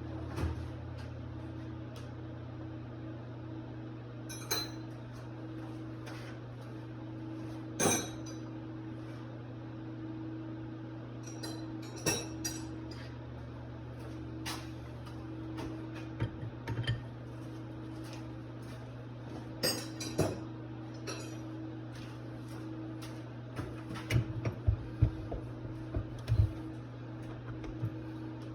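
Scattered metal clicks and clinks of hand tools and parts being handled while stripping down a Rochester 2GC two-barrel carburetor, over a steady low hum; the clinks come in quicker succession near the end.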